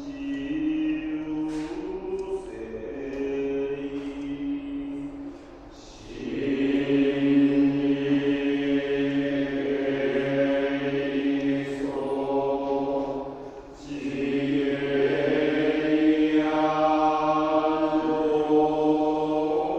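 Buddhist monks chanting together in long held notes over a low drone. Each phrase breaks off briefly, about five and a half and thirteen and a half seconds in, before the next one swells in louder.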